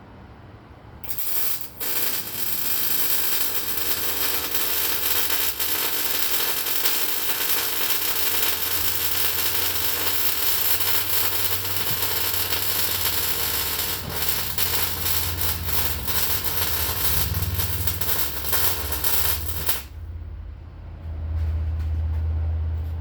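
MIG welder arc crackling and sizzling steadily as a bead is laid in to weld a front-end cross member in place, stopping abruptly about three seconds before the end. A low hum follows after the arc stops.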